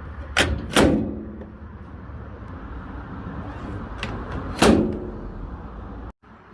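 A microwave oven's door being shut and opened, its latch clicking and the door knocking against the metal cabinet with a short hollow ring. There are two knocks close together early, a light click, then another knock midway, over a low steady hum. The door latch switches are the parts being checked for the oven's failure to start.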